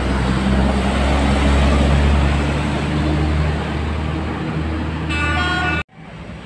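Large bus engine running close by, a loud low rumble. About five seconds in, a short high horn note sounds for under a second, then the sound cuts off abruptly.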